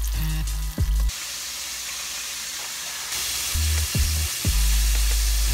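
Breaded bluefish deep-frying in a pot of hot oil: a steady sizzle, softer for a couple of seconds mid-way, with a few light clicks.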